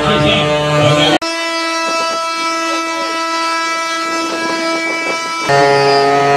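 Wooden ox-cart axles singing: a steady, drawn-out whine of the axle turning in its wooden bearings, the traditional 'song' of a carro de boi on the move. The tone breaks off briefly about a second in, comes back higher, and turns louder and deeper near the end.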